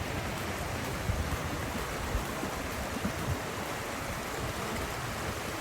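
A steady rushing noise, with uneven low rumbles, of wind or running water in the open air.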